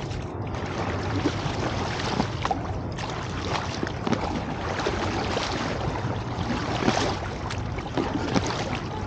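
Water splashing and sloshing around a raft being paddled and pushed through floodwater, with many small irregular knocks and clicks over a steady low rumble.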